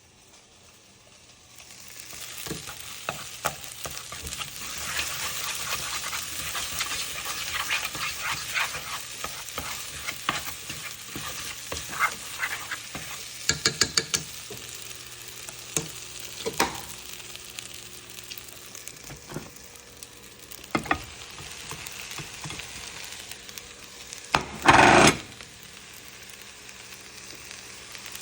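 Fried rice sizzling in a hot pan while a spatula stirs and scrapes it, with many short clicks of metal on the pan. The sizzle starts up about two seconds in. Near the end there is one loud, brief clatter.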